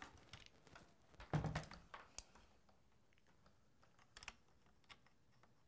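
Quiet handling sounds of a camera rig and its cables: a few scattered small clicks and knocks, with a softer thump about a second and a half in.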